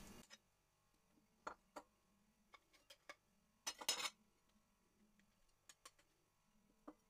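Near silence broken by faint, scattered clicks and taps of a spatula against a plate and a glass bowl as chopped vegetables are scraped in, the loudest cluster about four seconds in.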